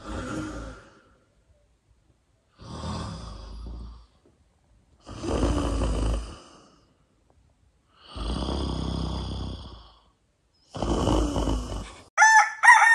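A person snoring: five long, rasping breaths about two and a half seconds apart. Near the end a rooster crows, louder than the snoring.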